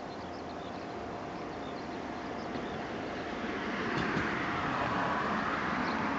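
A two-car Moka-14 diesel railcar approaching out of sight, its engine and wheel-on-rail noise growing steadily louder, strongest in the second half.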